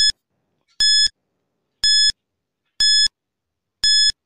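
Countdown timer beeps: five short, identical high electronic beeps, one a second.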